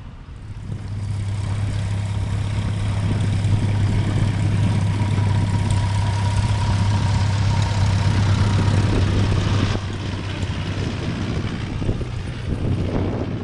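Piper L-4's four-cylinder Continental engine and propeller running steadily with a low hum. It grows louder about a second in and drops back somewhat about ten seconds in.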